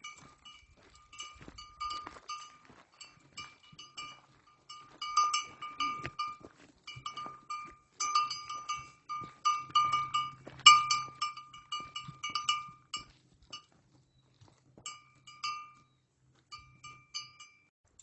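A small metal bell clanking in quick, uneven strokes. It is loudest around the middle and sparser near the end.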